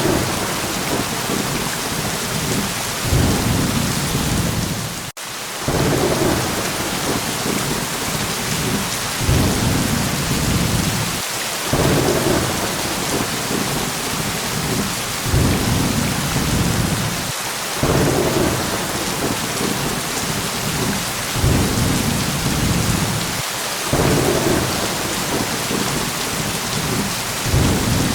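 Steady heavy rain with thunder rumbling low underneath in repeated swells every few seconds. The sound drops out for an instant about five seconds in.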